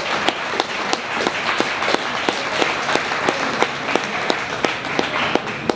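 Spectators applauding, with sharp, evenly timed clapping at about three claps a second.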